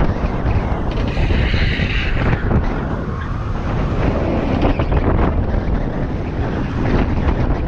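Wind buffeting the camera microphone at downhill longboarding speed, over the steady roar of skateboard wheels rolling on asphalt. A brief higher hiss comes in about a second in and fades out a second and a half later.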